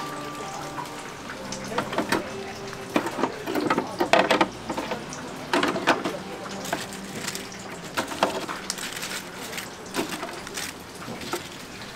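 Kitchen clatter at a street-food stall: irregular knocks and clicks of utensils and dishes, some ringing briefly, over a steady hiss.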